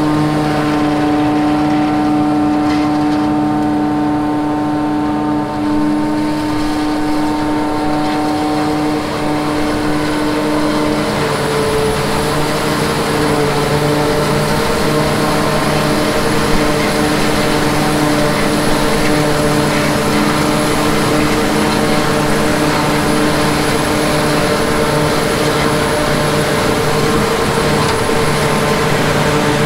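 New Holland self-propelled forage harvester running under load as it chops standing sweet corn: a loud, steady hum of several tones over the rush of crop going through the head. Its tone shifts about eleven seconds in as it draws close.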